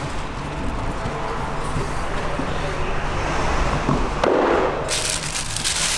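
Cardboard box of paint protection film being opened by hand. Near the end comes a second of crackly rustling of the cardboard and the roll's plastic wrap, over a steady background hiss.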